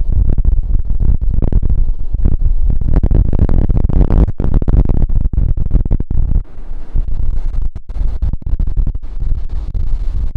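Ocean surf on a beach, waves breaking and washing in as a heavy low rumble. The wash swells and brightens about three to five seconds in, and the sound keeps cutting out in short, choppy gaps.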